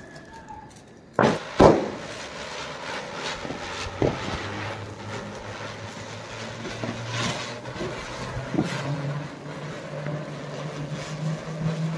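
Two sharp firecracker bangs about a second in, half a second apart, followed by a few fainter scattered pops over a steady low hum.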